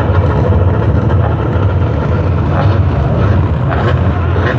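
Engines of several Lightning Rods stock cars racing round an oval track, a steady, loud mix of engine noise.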